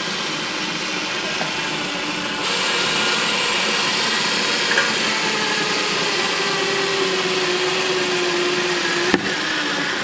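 Ryobi cordless drill running steadily under load, working through a metal mounting bracket into the wall. It gets louder a couple of seconds in, its pitch slowly sinks in the second half, and there is a sharp click near the end.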